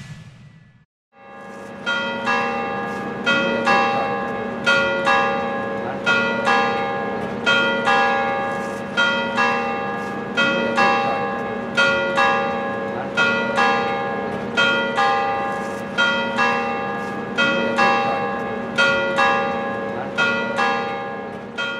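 Church bells ringing a peal: several bells of different pitch struck in turn in a steady run, each stroke ringing on into the next, starting about a second in.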